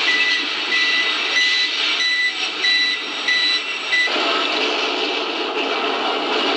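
A high electronic beep repeating about every two-thirds of a second over a steady, dense din. The beeping stops about four seconds in, and the din turns lower and fuller.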